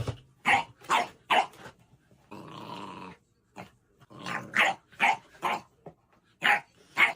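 A dog barking in short, separate barks, three in the first second and a half and several more later, with a growl lasting just under a second about two and a half seconds in.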